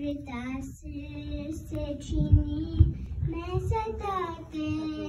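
A young girl chanting an Urdu noha, a Shia lament, drawing out long wavering notes with no instruments. Low thumps come about twice a second, the two loudest a little under halfway through.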